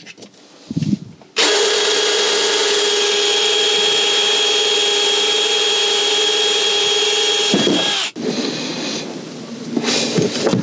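Cordless drill with a hole saw cutting a hole into a plastic freshwater tank. It runs at a steady speed with a whine for about six seconds, then stops abruptly.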